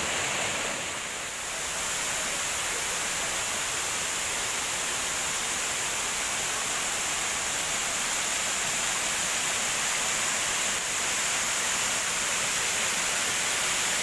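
Waterfall water rushing: a steady, even hiss without break.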